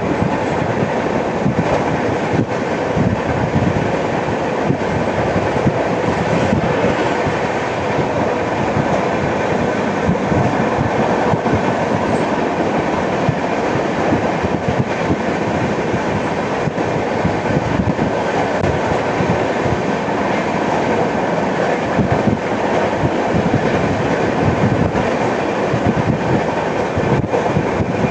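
Passenger express train running at speed, heard from on board: a steady loud rumble of wheels on rail, broken by frequent sharp wheel knocks that the uploader calls flat-wheel sound.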